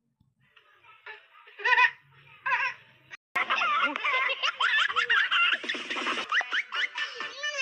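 Baby vocalising with two short high calls, then from about three seconds in, continuous baby laughter and giggling.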